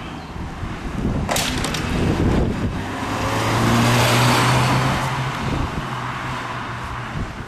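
Peugeot 206 CC car engine under power as it drives through a slalom course, growing loudest as it passes close about four seconds in, then fading as it pulls away. A brief clatter of sharp knocks comes between one and three seconds in.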